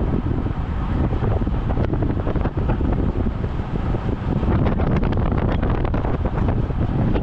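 Heavy wind buffeting on the microphone of a camera on a road bike riding at about 50 km/h, with road noise underneath. A run of faint ticks comes about five seconds in.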